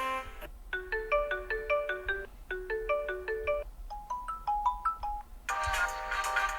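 Redmi Note 11 Pro default ringtones playing one after another: short, bright, marimba-like melodies, each stopping as a different tone begins. A denser, louder tone starts near the end.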